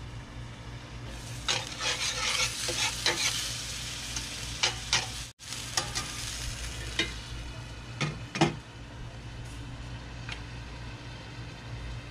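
Food sizzling in hot cast-iron pans while a metal spatula stirs and scrapes, with sharp clanks of metal on cast iron. The sizzle is strongest for a few seconds about a second in, and the loudest clank comes about eight seconds in.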